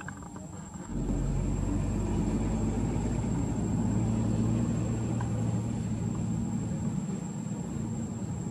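Steady low engine hum that starts suddenly about a second in and swells a little toward the middle.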